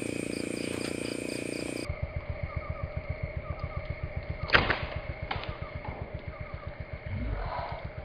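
Crickets chirping steadily in the dark. From about two seconds in, a fast low pulsing takes over, with one sharp snap about four and a half seconds in and a fainter click soon after.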